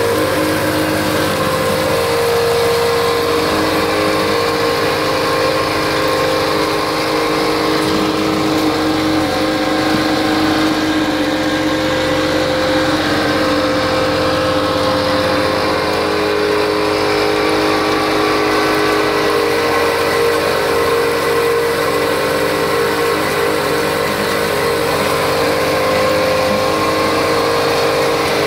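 Vibrating soil screener running, its engine-driven agitator shaking the heavy-duty mesh deck with a steady engine drone, while broken hardcore rattles across the screen. A mini excavator's engine works alongside.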